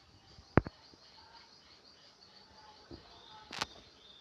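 Faint outdoor birdsong with insects chirping: short, thin calls. A single sharp click comes about half a second in, the loudest thing heard, and a brief hissing rustle comes about three and a half seconds in.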